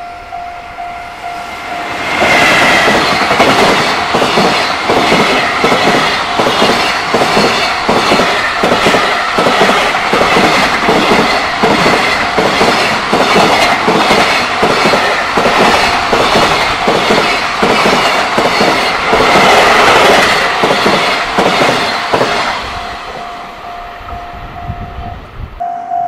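JR Freight EF210 electric locomotive and its container wagons passing close at speed, the wheels clattering over rail joints in a quick steady rhythm for about twenty seconds. A level crossing warning bell rings in repeated strokes before the train arrives and again as it fades.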